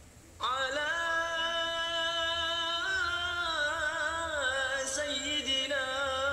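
A voice singing a suluk, an Islamic devotional chant, in long held notes with wavering ornaments, played back through the tablet's speakers. It comes in about half a second in.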